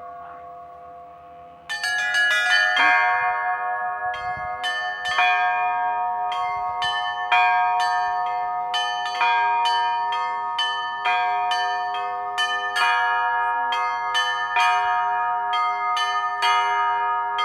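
Russian Orthodox chapel bells rung by a bell ringer. The ringing of the last strokes dies away, then a quick cluster of strikes about two seconds in starts the peal again. After that, small bells are struck rapidly in a repeating pattern over the longer ring of the lower bells.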